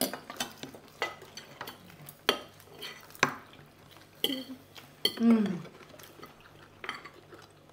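Forks and spoons clinking and scraping on dinner plates: a string of sharp, irregular clinks and taps. About five seconds in comes the loudest moment, a short 'mm' from a voice that falls in pitch.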